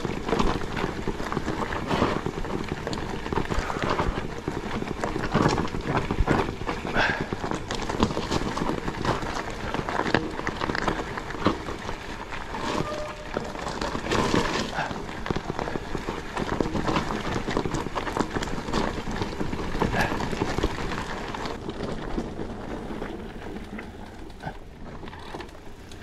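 Cube Stereo Hybrid e-mountain bike ridden over a rough trail: a steady rush of tyres on dirt and stones with constant small rattles and knocks from the bike. It eases off a little near the end.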